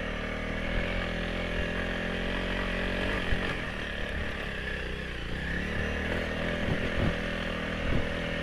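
Motorcycle engine running steadily at a nearly even pitch, with a few light knocks.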